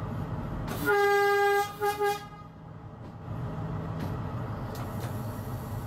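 Diesel train's horn sounding one long blast about a second in, then two short toots, a warning to dogs walking on the track ahead. The locomotive's engine drones steadily underneath.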